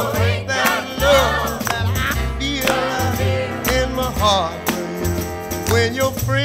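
Soul song playing as background music: a singing voice over bass and a steady beat with tambourine-like percussion.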